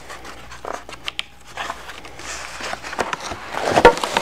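Long cardboard box being pulled open by hand: cardboard flaps rustling and scraping, with small clicks. Near the end come a few louder knocks and scrapes with a brief squeak.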